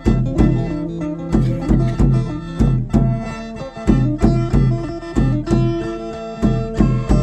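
Isan folk music on phin (plucked lute) and khaen (bamboo mouth organ), with sustained reedy tones over a steady beat of about two strokes a second.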